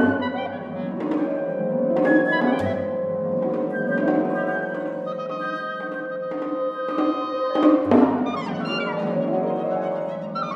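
Contemporary classical chamber ensemble playing: a held wind tone runs under a series of struck, pitched percussion notes, with three low drum strokes spread through it.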